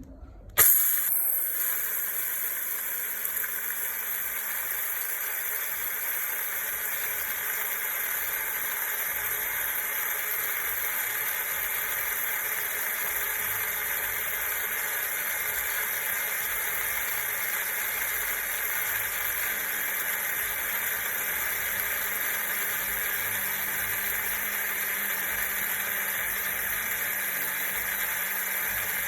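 Electric coffee grinder switched on about half a second in and running steadily as it grinds coffee beans, a loud even whirring with a low motor hum.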